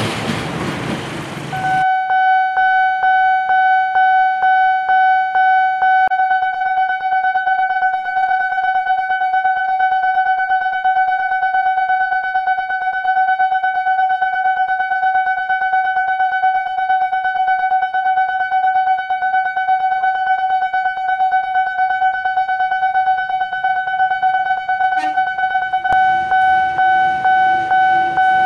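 Electronic railway level-crossing alarm ringing: one steady high tone pulsing rapidly without a break, warning that a train is coming. It starts about two seconds in, where the rumble of a passing train cuts off.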